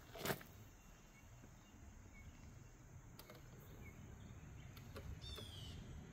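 Quiet outdoor background noise, with a single sharp knock or step just after the start, a few faint light ticks, and a short high squeak or chirp that falls in pitch about five seconds in.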